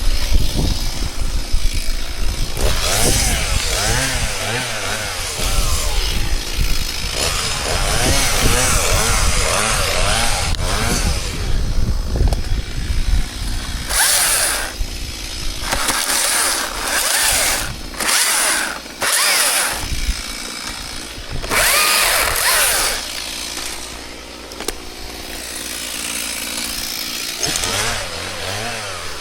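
Chainsaw running and cutting wood, its engine pitch rising and falling as it is revved. About halfway through come several short, loud bursts.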